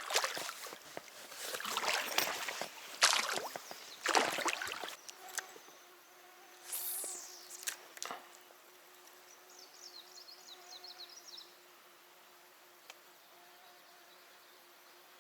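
Several loud swishing or splashing noises in the first few seconds, then a faint steady buzz of a flying insect close by. Partway through come one quick falling high whistle and a short run of high chirps.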